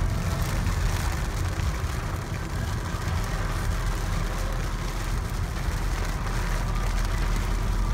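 Car driving on a wet road in the rain: a steady low rumble with an even hiss of rain and wet tyres.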